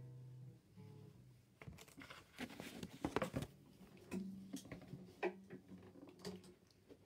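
Faint handling noise close to the microphone: scattered clicks and rustling, busiest about halfway through, with brief low hums near the start and about four seconds in.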